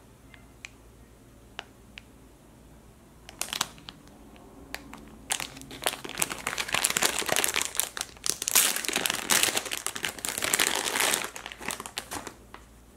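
Clear plastic packaging bag crinkling as hands open it and pull out a foam squishy toy. A few faint clicks at first, then crinkling that starts about three seconds in, grows dense and busy, and dies away near the end.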